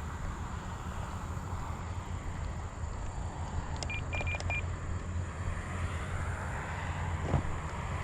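Electric motor and propeller of a ParkZone T-28 radio-control plane in flight, a faint drone that rises and falls over a steady low rumble. About four seconds in comes a brief run of about four short high beeps.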